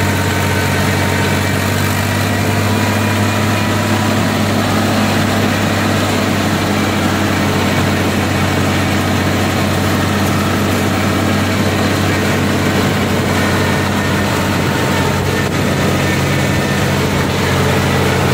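Mahindra B 275 DI tractor's three-cylinder diesel engine running steadily on the road, heard from on board the tractor.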